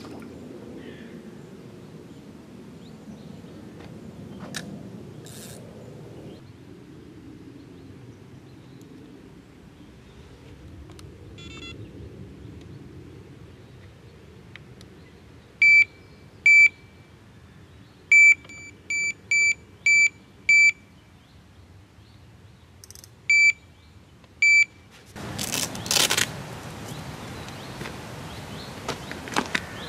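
Electronic carp bite alarm sounding about ten short, same-pitched beeps in uneven groups: two single beeps, a quick run of six, then two more. Near the end a loud rushing, rustling noise takes over.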